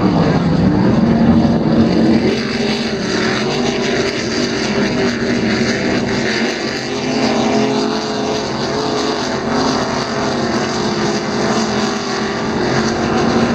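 Engines of offshore racing powerboats running at speed, a loud steady drone of several engine tones whose pitch wavers and slides as the boats pass.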